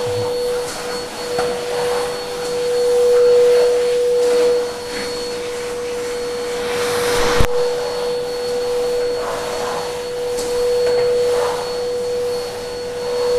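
Vacuum cleaner running with a steady motor whine as its floor head is pushed across a hard floor, the sound swelling and dipping as it moves. A sharp knock about seven and a half seconds in.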